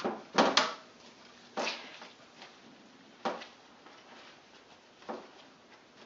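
A wet cloth being wiped, pressed and squeezed against the bottom of an enamel tray by gloved hands: a series of short wet swishes and squelches about every second and a half, the loudest pair coming just under half a second in.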